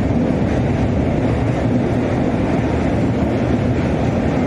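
Passenger train running over a steel truss bridge: a loud, steady rumble of wheels on rails, heard from inside the coach at an open window.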